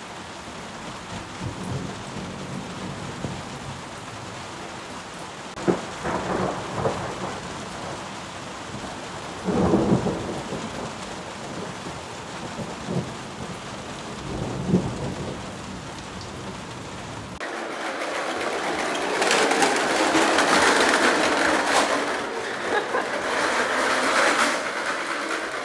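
Steady heavy rain with low rumbles of thunder, the deepest about ten seconds in. About two-thirds of the way through, the sound cuts to a louder, brighter hissing rush.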